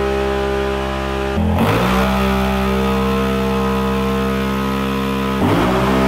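Can-Am Renegade 1000's V-twin engine running hard on a chassis dyno during baseline passes, holding a steady high pitch that shifts abruptly about a second and a half in and again near the end.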